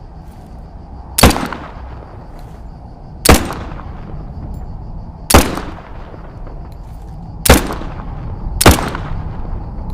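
Five single shots from a 1911 pistol, fired one at a time about two seconds apart, the last two closer together, each with a short echoing tail.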